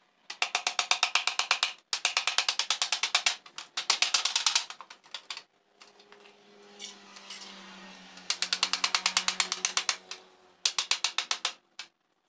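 Fast rasping strokes of hand work on a sheet-metal plate, about eight strokes a second, in bursts of one to two seconds with short pauses and a quieter gap in the middle.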